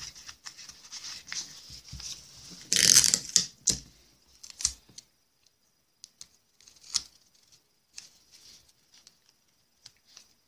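Adhesive tape ripped off the roll with one short, loud tear about three seconds in, among scattered small clicks and rustles of paper being handled and taped down.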